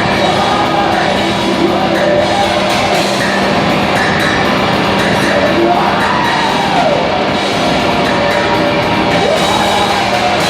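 Loud live drone music through a PA: a dense distorted wall of sound over a steady low held tone, with slow sliding pitches rising and falling in the middle and again near the end.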